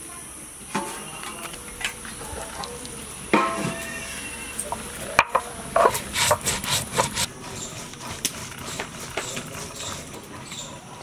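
Stone roller grinding spice seeds with a little water on a shil, a flat stone grinding slab: rough scraping strokes and knocks of stone on stone, with a quicker run of strokes about six seconds in.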